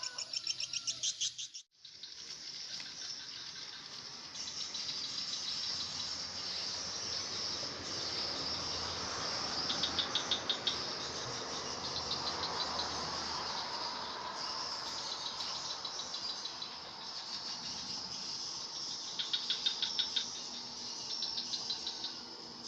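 Insects chirping in a steady high-pitched chorus, with rhythmic pulsing trills that swell and fade now and then.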